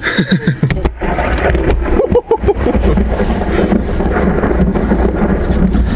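Thunder rumbling low and steady with a hiss of rain, building about a second in. A brief low voice is heard at the start.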